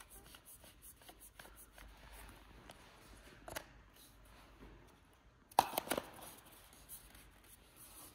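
Plastic parts of a Nordson Encore powder-coating gun's elbow nozzle being handled: faint rubbing and small clicks, a sharper click about three and a half seconds in, and a brief louder cluster of plastic knocks at about five and a half seconds.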